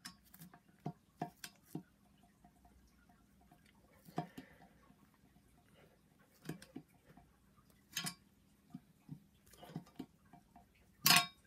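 Pliers clicking and scraping against the valve stems and metal of a BMW N54 cylinder head as the valve stem seals are gripped and pulled off: scattered light metallic clicks and taps, the loudest near the end.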